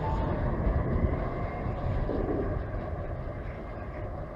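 SEPTA Market-Frankford Line train pulling away: a thin motor whine fades out in the first moment, leaving a low rumble of wheels on rail that slowly dies away as the train recedes.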